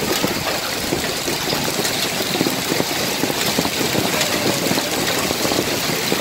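Heavy hail mixed with rain pelting down, hailstones around 2 cm across: a dense, steady clatter of countless small impacts.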